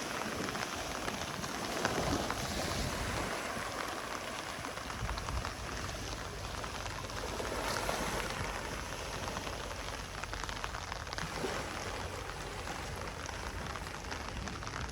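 Gentle ocean waves washing onto a beach: a steady fizzing hiss of surf that swells softly now and then, about two seconds in and again near eight seconds.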